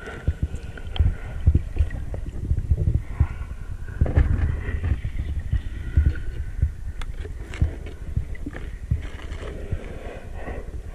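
Muffled underwater noise picked up by a camera held below the surface: a low rumble of moving water with irregular knocks and clicks, likely from handling of the camera housing.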